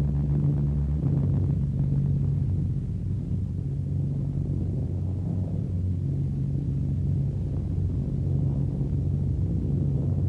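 Piston engines of a multi-engine bomber running steadily in flight, a constant low drone heard from inside the aircraft.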